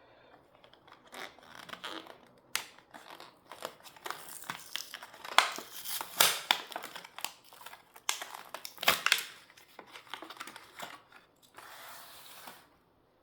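Hot Wheels blister pack being opened by hand: the plastic bubble crinkling and the cardboard card tearing in irregular crackles and snaps, with a steadier rasp of about a second near the end.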